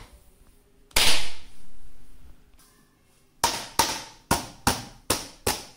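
A jelly mould set down upside down on a stainless steel plate with a clatter about a second in, then a run of six sharp knocks, about two and a half a second, on the upturned moulds and steel plate, each ringing briefly.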